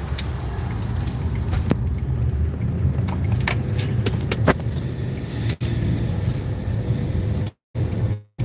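Steady low road and engine rumble inside a moving car's cabin, with a few light clicks and knocks. The sound cuts out briefly twice near the end.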